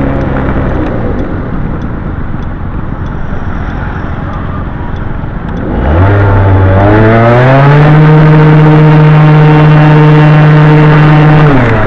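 Honda Gyro Canopy scooter's two-stroke engine through a Moto Repair Garyuz II aftermarket muffler, heard from the cabin. It winds down and runs quietly off the throttle for several seconds. About six seconds in it revs up sharply and holds one steady high note while the automatic transmission pulls, then drops off near the end.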